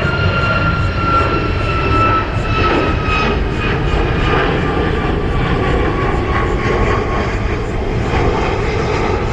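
Jet airliner engines running: a steady low rumble with a high whine that slowly falls in pitch.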